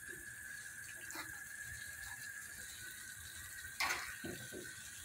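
Ground turkey, bean and tomato mixture sizzling faintly in a frying pan while a fork stirs it, scraping and clicking against the pan a few times, loudest a little under four seconds in.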